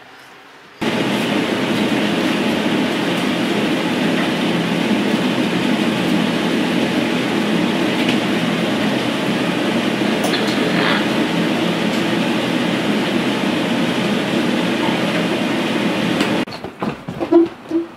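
A loud, steady, dense rumbling noise starts abruptly about a second in and cuts off suddenly a moment before the end. It is followed by a few short knocks and rustles.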